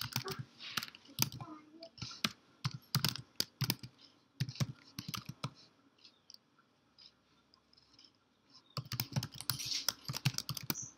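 Typing on a computer keyboard: quick runs of keystroke clicks, thinning to a few scattered taps around the middle, then another quick run near the end.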